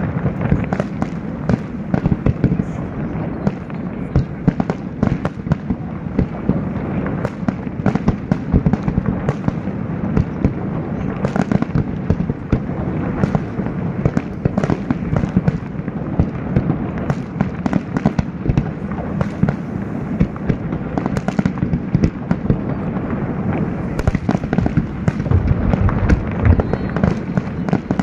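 Aerial fireworks display: shells bursting one after another in a dense, unbroken run of bangs and crackles.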